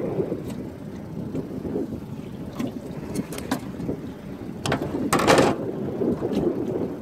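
Wind buffeting the microphone in an open aluminium fishing boat, with scattered short knocks and a louder brief rustle a little after five seconds in as a fish is handled in the landing net.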